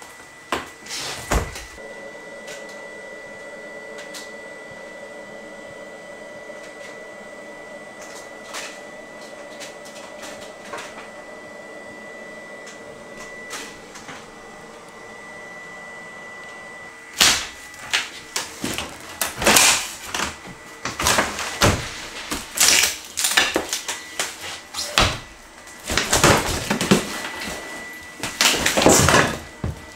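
Wooden kitchen cabinet boxes being handled, knocked and dragged on the floor: a dense run of loud bangs, thumps and scrapes starting a little past halfway through. Before that it is quieter, with a few single knocks and a faint steady high tone.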